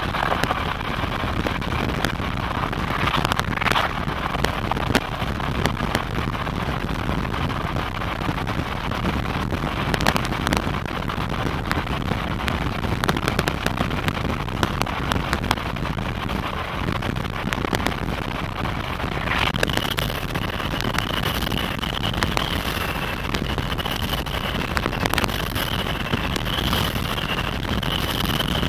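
Road and wind noise inside a car driving along a highway, with wind rushing past the open side window. About twenty seconds in, a thin, high, steady whistle joins it and holds.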